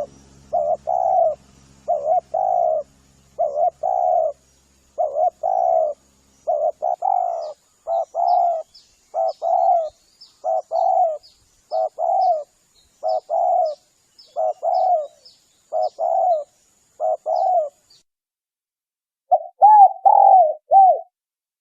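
Spotted dove (tekukur) lure call: a recording of the dove cooing over and over in short phrases of low notes, one roughly every second. After a pause, a different, bending coo phrase comes near the end.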